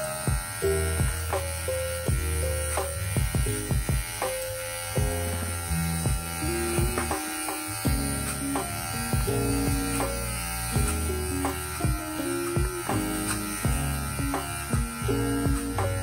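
Kemei KM-2002 cordless hair clipper running steadily while trimming hair at the back of the neck, with background music playing over it.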